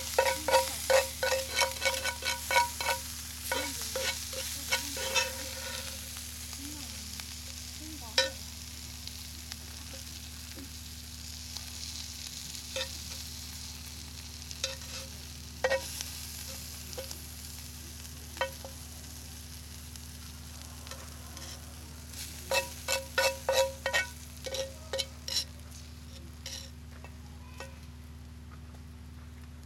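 A metal utensil scraping and knocking against a cast-iron skillet while stirring and scraping out cooked food. A quick run of ringing clinks comes in the first five seconds, then scattered single knocks, then another quick run about three-quarters of the way in, over a steady faint hiss.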